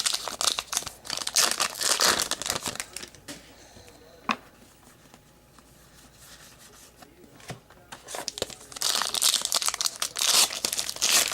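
Trading card pack wrappers being torn open and crinkled by hand, in two spells of busy crackling with a quieter stretch and a single click between.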